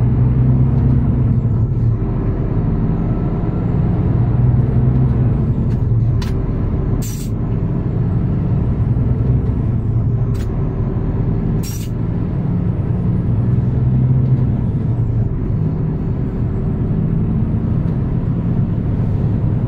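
Heavy truck's engine running and road noise heard from inside the cab, a steady low hum. About 7 and 12 seconds in come two short, sharp hisses of air, each with a brief dip in the engine sound.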